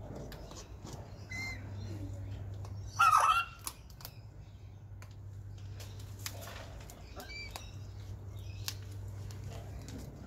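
Red-tailed black cockatoo chewing food with its beak: scattered small clicks and crunches, a couple of faint short chirps, and one short loud burst about three seconds in.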